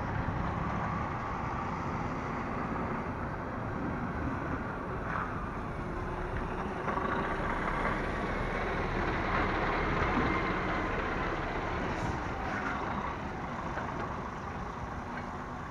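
Diesel engine of a DAF lorry hauling a curtainsider trailer past at low speed as it turns, getting a little louder as the cab draws alongside around the middle.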